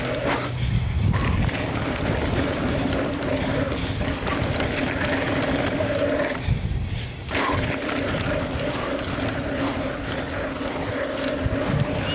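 Mountain bike descending a rough trail: tyre and chassis rattle mixed with wind on a helmet-mounted camera, under a steady buzz that drops out briefly about six and a half seconds in.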